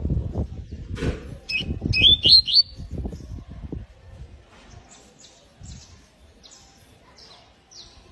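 Canary chirping: a quick run of rising chirps near the start, then a series of short, faint high notes in the second half. Low rumbling and thumps are heard under the first half.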